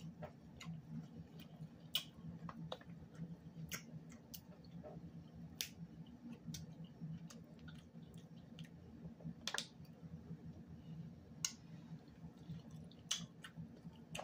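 Snow crab shells being snapped and picked apart by hand while the eater chews, heard as irregular sharp clicks and cracks, about a dozen, over a faint low hum.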